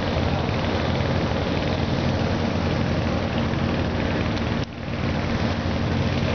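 An engine running steadily: a constant low hum under an even rushing noise, dipping briefly once about three quarters of the way through.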